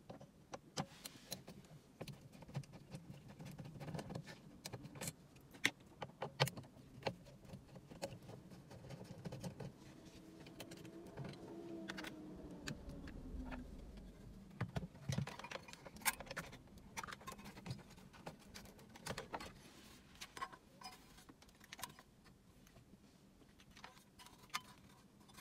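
Screws being undone and the Honda Civic's metal-cased factory radio unit worked loose and handled in the dashboard: irregular light clicks, taps and metallic clinks.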